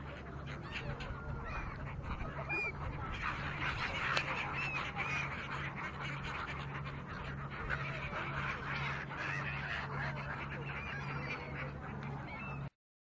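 A large flock of gulls calling, many short overlapping cries at once. The calling cuts off suddenly near the end.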